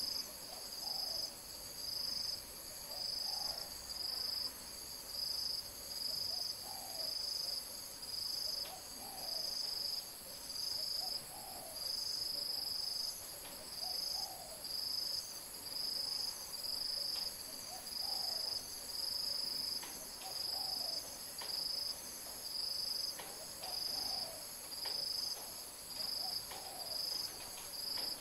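Insect chorus: a steady high whine with a second high buzz pulsing on and off in an even rhythm. Faint short low calls repeat every second or two underneath.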